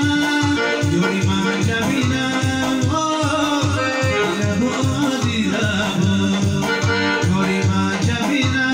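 Arranger keyboard playing a song: a lead melody on the keys over a steady rhythm of auto-accompaniment with a pulsing bass line.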